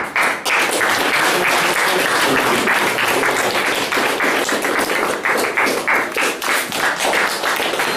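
Audience applauding: many hands clapping at once, steadily.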